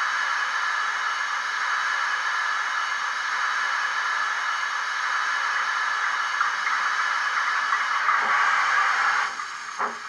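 Digital steam sound from a Loksound 5 decoder with a Wheeltappers BR 9F sound file, played through the model's small speakers: a steady hiss of steam from the standing locomotive. Near the end the hiss breaks off and the first slow exhaust beats start as the model moves off.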